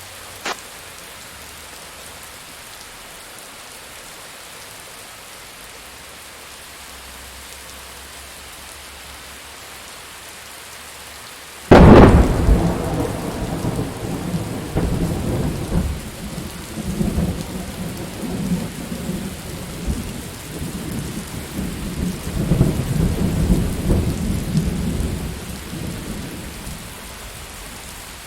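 Steady rain with a sudden loud thunderclap about twelve seconds in, followed by a long rolling rumble of thunder that swells again and dies away near the end. A short sharp crack is heard just after the start.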